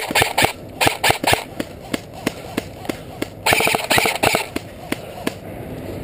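Airsoft guns firing in quick, irregular shots, with a dense rapid burst about three and a half seconds in; the shooting stops about five seconds in.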